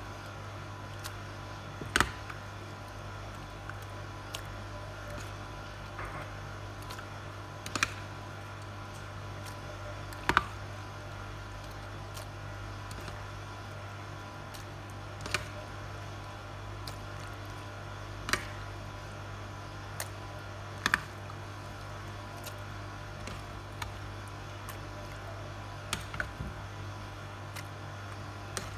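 A plastic serving spoon scooping macaroni salad out of a stainless steel bowl, giving short light knocks and clicks against the bowls every few seconds over a steady low hum.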